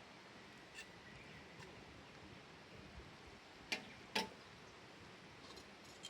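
Light clicks of small hard objects being handled, with two sharp clicks about half a second apart in the middle, typical of camp cookware or utensils knocking together.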